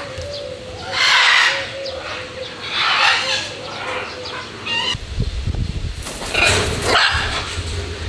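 Macaws squawking: several loud, harsh, raspy screeches in an aviary. A low rumble comes in from about five seconds in.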